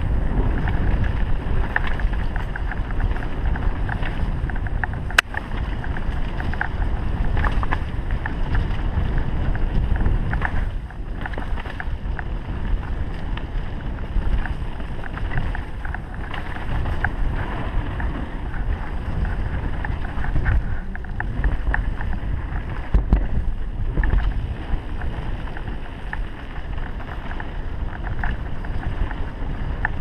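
Wind rushing over the microphone with the rumble and rattle of a mountain bike descending a rough dirt trail at speed, full of small clicks and knocks from the bike over roots and rocks. One sharp knock about five seconds in.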